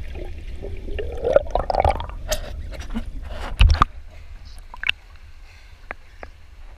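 Pool water gurgling and splashing around the camera as it comes up through the surface, with a steady underwater rumble that stops after a loud splash near four seconds in. Afterwards quieter, with a few drips.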